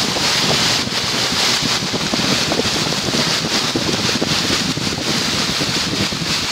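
Steady rush of water thrown up by a car's tyres as it drives through a flooded road in the rain, with wind buffeting the microphone.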